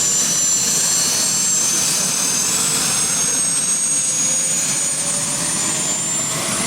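Helicopter turbine engine running with a steady high whine that slowly rises in pitch, spooling up after start.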